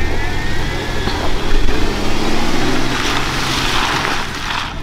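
Jeep Wrangler Unlimited Rubicon's engine pulling under load as it drives up a steep dirt hill climb, with a rush of noise for a second or so near the end.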